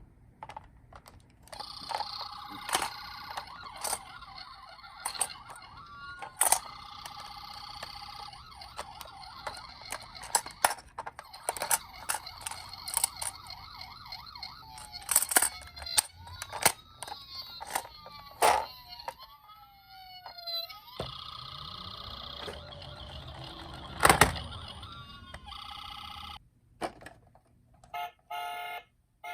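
Electronic sirens of toy emergency vehicles. A steady siren tone runs through the first half, broken by many clicks and knocks. Past the middle a wailing siren rises and falls several times, and near the end come short repeated beeps.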